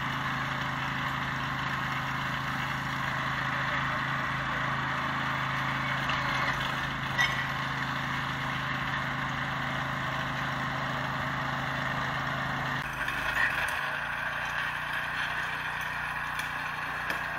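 Small petrol engine of a portable rail sleeper-screw machine running steadily while rails are screwed down to the sleepers. The engine's hum holds one pitch, which shifts a little about thirteen seconds in.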